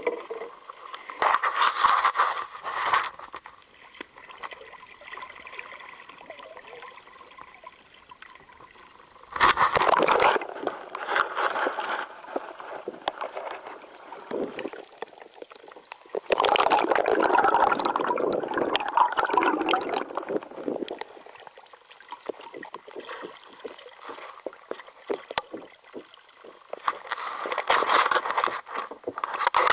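Water splashing and gurgling from canoe paddling, in four bursts of a few seconds each, with quieter water sounds and short clicks between them.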